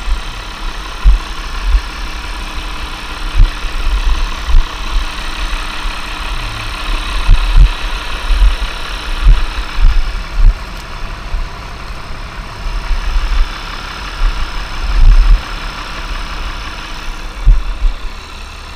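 Irregular low thumps and bumps as a large tractor dual tire is rolled and handled by hand, over a steady engine hum.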